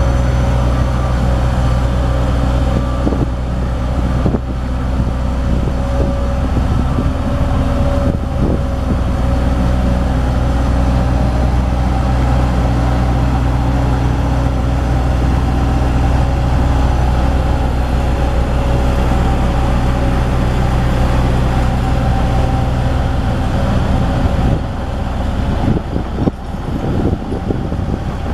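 Hamm 3410 single-drum soil compactor's diesel engine running steadily as the roller drives over gravel, a deep, even drone. Near the end the drone breaks up and drops a little in level.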